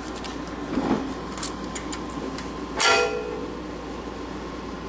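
Light metallic clicks of steel tools and valve parts against a flathead Ford engine block during valve spring installation, then one loud metal clank about three seconds in that rings briefly.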